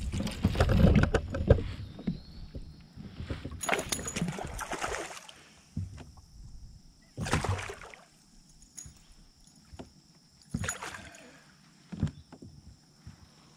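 Splashing and handling noises as a largemouth bass is fought at the side of a kayak and lifted from the water: several short bursts, the loudest and longest in the first two seconds, the rest brief and spaced out.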